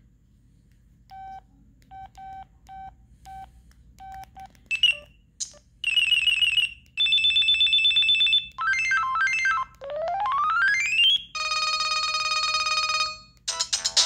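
LG VX6100 flip phone: a run of short keypad beeps as its menus are stepped through, then brief previews of its preloaded ringtones, each cut off when the next is selected — steady electronic tones, a quick run of notes, a rising sweep, and a busier melody starting near the end.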